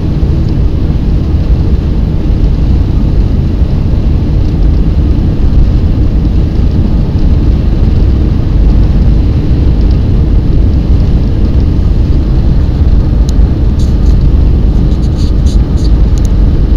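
Blizzard wind buffeting the microphone: a loud, steady, low rumble. Over the last few seconds a series of short, light ticks sounds above it.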